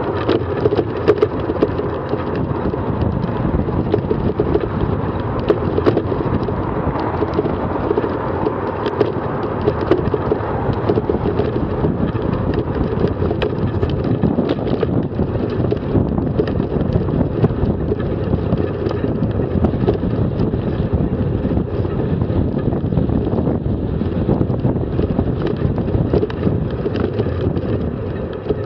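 Wind buffeting a bicycle-mounted camera's microphone over the steady rumble of riding on a rough cycle-lane surface, with frequent small knocks and rattles from bumps in the path.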